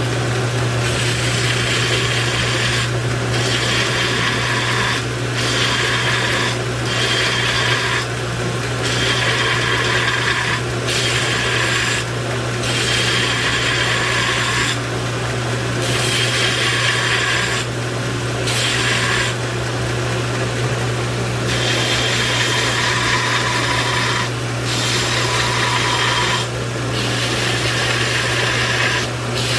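An electric grinder runs with a steady hum while steel is pressed against it in repeated passes of one to two seconds. The grinding hiss breaks off briefly between passes.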